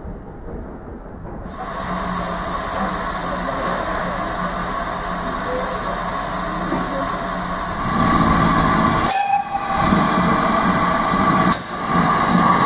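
GWR Hall class 4-6-0 steam locomotive No. 4953 at a station platform: a steady hiss of steam with faint held tones starts suddenly about 1.5 s in. It gets louder and rougher from about 8 s as the engine makes smoke and begins to move off.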